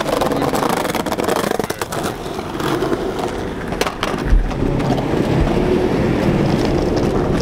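Skateboard wheels rolling over asphalt with a continuous rough rumble and hum, a few sharp clicks, and a low thump about four seconds in.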